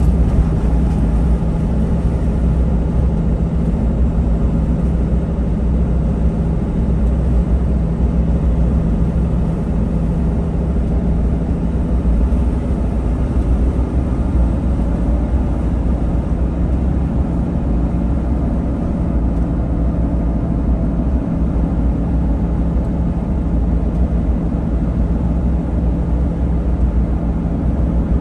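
Truck driving at road speed, heard from inside the cab: a steady low rumble of engine and tyre noise with a faint steady hum.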